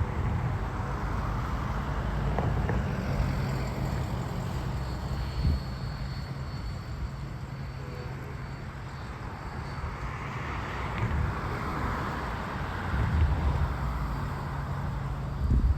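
Steady low diesel drone from a pair of CSX freight locomotives running light, mixed with a rushing noise that swells twice, about at the start and again about ten seconds in.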